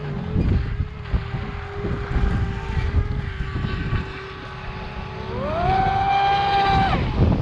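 Electric RC speedboat's motor whining at a steady pitch, then rising sharply a little past halfway as the throttle opens. It holds the higher whine and cuts off abruptly near the end. Wind rumble on the microphone throughout.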